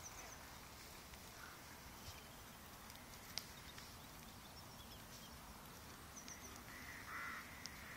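Near-silent outdoor background with a faint steady hiss, a few faint ticks and, near the end, faint distant bird calls.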